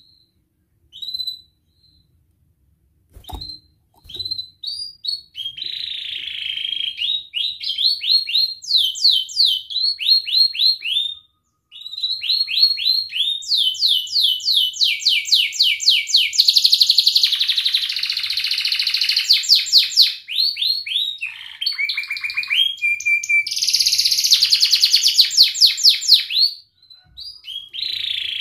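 Domestic canary singing: a few separate high chirps, then from about five seconds in a long song of fast trills and rolling phrases, breaking off briefly twice. A single click about three seconds in.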